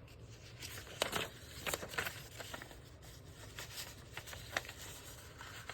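Paper sheets rustling and crinkling as they are handled and folded by hand, with scattered short rustles and a few light taps.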